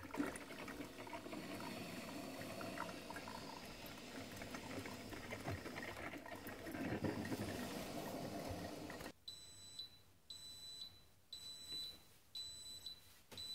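Cuisinart Brew Central 14-cup coffee maker brewing, a steady gurgling hiss of hot water. About nine seconds in, it gives five short high beeps about a second apart, signalling that the brew is finished.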